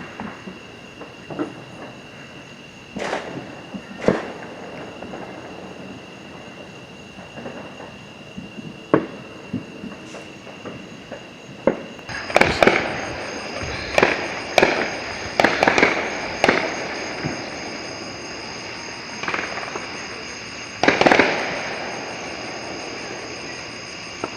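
Consumer fireworks going off: scattered sharp bangs, then several bangs in quick succession and a louder burst near the end. A steady high-pitched tone runs underneath.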